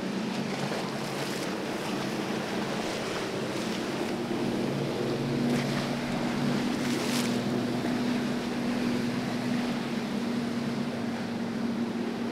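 Outboard motors of passing boats running at speed with a steady low drone, over the rush of hulls cutting through choppy water and wind on the microphone; a couple of brief splashes stand out.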